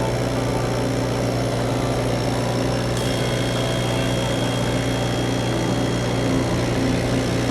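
CNC cutting machine running steadily: an even mechanical hum, with a thin high whine joining about three seconds in.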